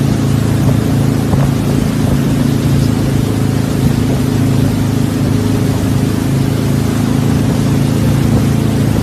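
A towing motorboat's engine running steadily, mixed with the rush of churning wake water and wind.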